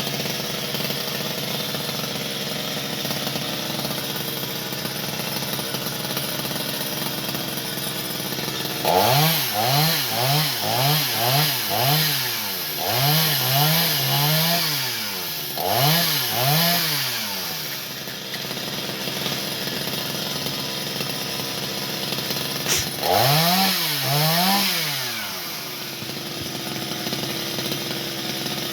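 Chainsaw engine idling, then revved up and down in a quick series of throttle blips about a third of the way in, and again in a short pair of revs near the end, settling back to idle between.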